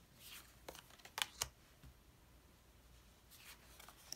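Tarot cards being handled and laid down on a cloth-covered table: a few sharp clicks and taps of card stock in the first second and a half, then a soft sliding swish and another click near the end.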